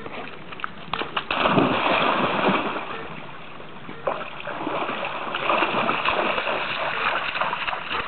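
A dog splashes into a shallow creek about a second in, then wades through the water, its legs sloshing and splashing with each step.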